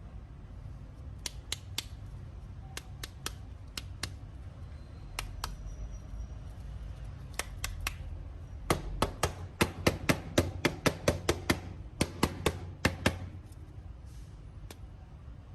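Sharp clicks and taps of small hard parts: a few scattered ones at first, then a quick run of about twenty from about nine to thirteen seconds in, over a low steady hum.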